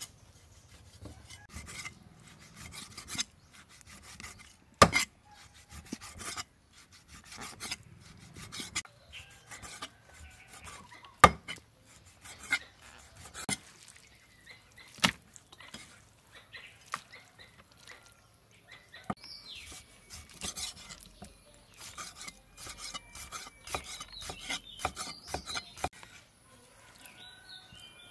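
Cleaver slicing raw pork on a wooden chopping block: irregular knocks of the blade on the wood with the rasp of the knife drawing through the meat, and two louder chops about 5 and 11 seconds in.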